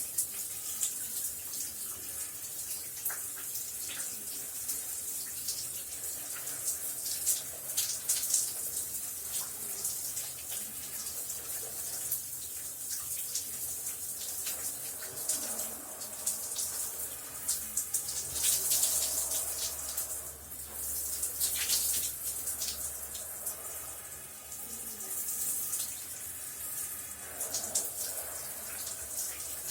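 Shower running: a steady hiss of spray with many small irregular splashes and spatters as the water falls.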